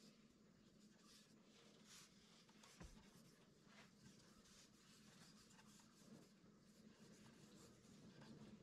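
Faint, irregular swishing of a gloved hand rubbing finish into the end grain of a wooden cutting board, over a low steady hum, with one soft knock about three seconds in.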